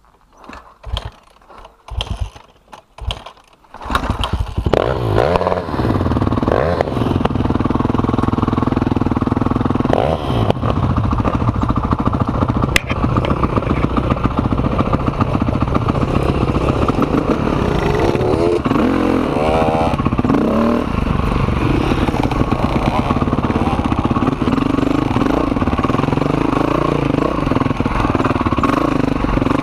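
Enduro motorcycle engine: a few short sputters, then it catches about four seconds in and runs continuously, revving up and down as the bike is ridden on a dirt trail.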